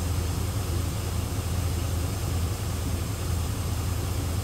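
Chevrolet Silverado 2500 pickup's gasoline V8 idling steadily, a low even drone.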